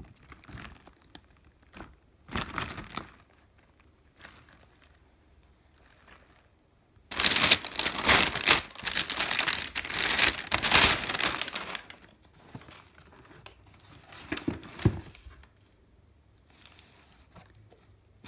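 Plastic packaging film and a plastic mailer bag crinkling and rustling as a parcel is unwrapped. The crinkling is loudest for about five seconds in the middle. A couple of soft knocks follow.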